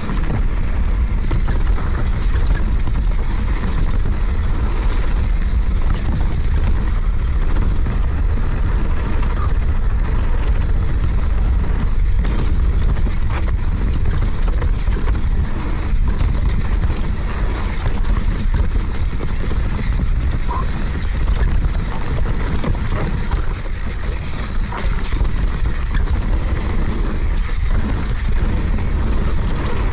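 Radon Swoop mountain bike running fast down a dirt downhill trail: tyres rolling over dirt and roots with the bike's rattle, under a heavy, steady rumble of wind on the action camera's microphone.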